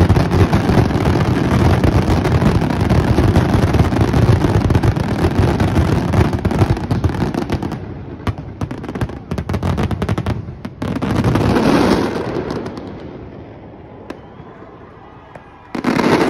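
Fireworks finale barrage: aerial shells bursting in rapid, overlapping bangs and crackle for the first several seconds, then thinning to scattered single reports about halfway through and dying away.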